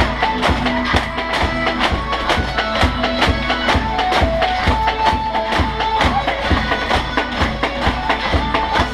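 Background music with a steady, fast beat and a pitched instrumental melody.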